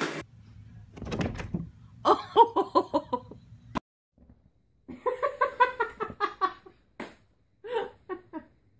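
A person laughing in quick, high-pitched bursts, in two spells with a short gap between them, then a few more short bursts near the end.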